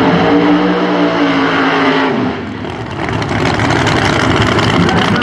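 Pro Nitrous drag car's V8 held at high revs during a burnout, the rear tyres spinning. The engine note falls slightly, dips about two seconds in, then comes back rougher and louder.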